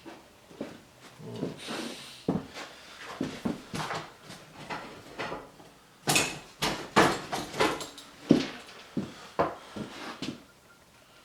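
Hand tools clinking and clattering as they are rummaged through in search of pliers: a run of irregular knocks and clacks, busiest about six to eight seconds in.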